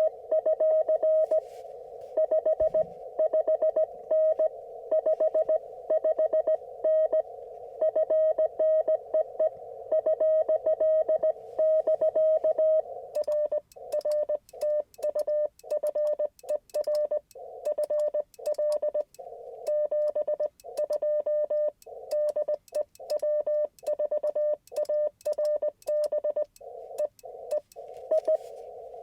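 Morse code (CW) from an Icom IC-705 ham radio transceiver: a single mid-pitched tone keyed on and off in dots and dashes. For roughly the first dozen seconds the tones sit over a steady receiver hiss; after that the gaps between them are clean and each element starts and stops with a slight click.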